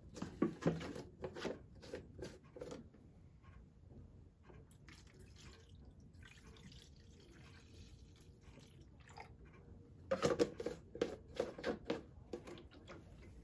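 Evapo-Rust rust remover being poured from a plastic jug into a plastic tray: a faint trickle of liquid in the middle. The jug knocks and clicks as it is handled at the start and again near the end.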